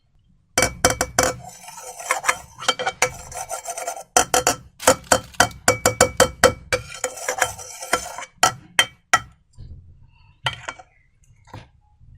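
Slime being worked in a container: a dense run of sharp crackles and clicks, thickest in two stretches and thinning out near the end.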